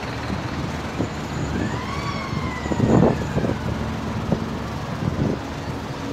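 Highway traffic noise with a single siren wail that rises and then falls about two seconds in, and a few short thumps.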